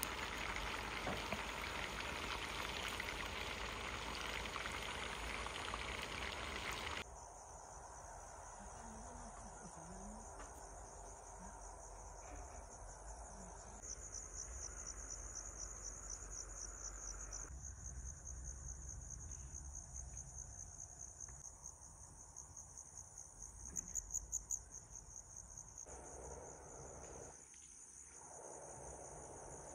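A pan of fish simmering over a wood fire gives a steady hiss for the first several seconds. Then crickets chirp in a continuous high trill, with louder pulsing stretches about halfway through and again near the end.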